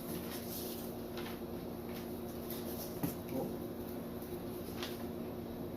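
Faint handling of a reptile shipping box and its packing: a few soft clicks and a light knock about three seconds in. A steady low hum runs underneath.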